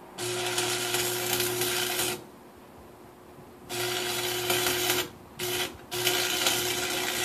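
Rotary cutoff wheel whining as it cuts metal on a seized Nissan V6 engine, run in four bursts: about two seconds, then a pause, then a second run, a brief blip and a final run. The pitch holds steady through each burst.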